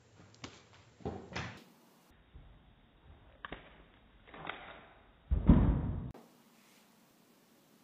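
A string of soft knocks and thumps from a cat jumping and landing on a wooden parquet floor, with the loudest, deepest thud about five and a half seconds in.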